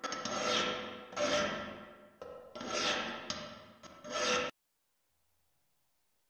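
A hand file rasped in long strokes across the steel of a rusted pick head, roughly one stroke a second, with the metal ringing under it. It cuts off suddenly about four and a half seconds in.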